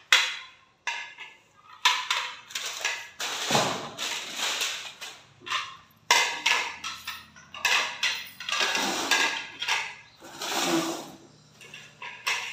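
Rose-printed dinner-set plates and bowls being set down on a hard stone floor and knocked against one another, a series of sharp clacks and clatters every second or so.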